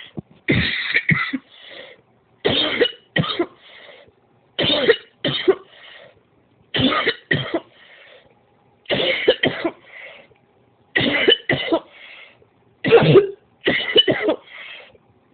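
A woman coughing in a long fit: repeated bouts of two or three coughs, each followed by a fainter trailing sound, coming about every two seconds.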